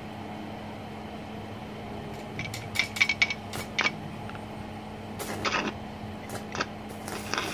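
Stick electrode on a Smarter TIG-180S inverter welder at 90 amps being struck against steel: a run of sharp cracks and short crackling spits as the arc catches and dies, a dozen or so in the middle, then near the end the arc holds in a continuous crackle. A steady low hum runs underneath.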